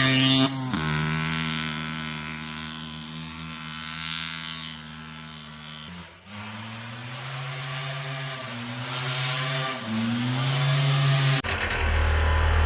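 Yamaha Blaster ATV's two-stroke single-cylinder engine running at a fairly steady pitch, fading somewhat and then growing louder again, with brief dips in revs about six and ten seconds in. Near the end the sound switches abruptly to a low rumble.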